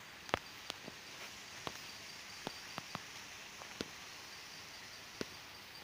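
Faint steady hiss broken by about ten short, sharp clicks at irregular intervals.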